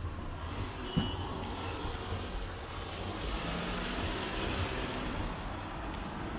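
Street traffic: engine rumble and tyre noise, swelling as a vehicle passes near the middle, with a single sharp click about a second in.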